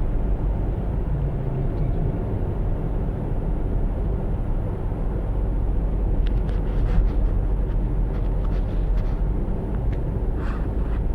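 Steady low rumble of a car on the move: engine and road noise, with a few faint knocks about two-thirds of the way through.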